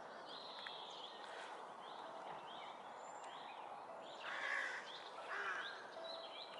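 Wild birds singing in short, repeated high chirps over a steady outdoor background hiss, with two brief rustling noises about four and five seconds in.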